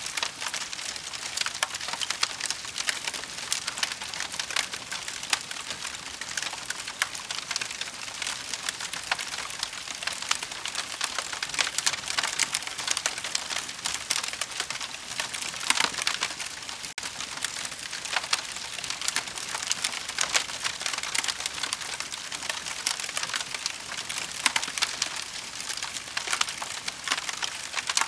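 Wood fire in a fireplace crackling steadily: a dense stream of small pops and snaps over a soft hiss.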